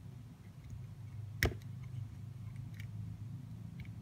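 Electrolytic capacitor leads being pushed into a solderless breadboard's contacts: one sharp click about a second and a half in, then a few faint clicks, over a low steady hum.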